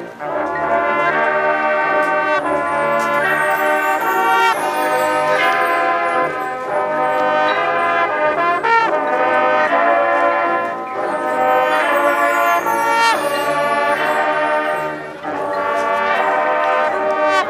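High school marching band playing its field show, the brass section holding loud sustained chords that change about every second, with a short drop in level about fifteen seconds in.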